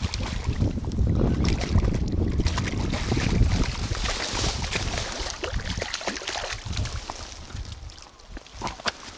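A hooked brown trout splashing and thrashing at the water's surface close to the bank while it is played in. Wind rumbles on the microphone, heaviest in the first half.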